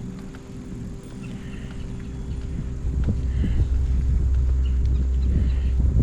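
Wind rumbling across the microphone of a camera on a moving touring bicycle, over a steady low hum; the rumble grows much louder about halfway through, as the bike picks up speed.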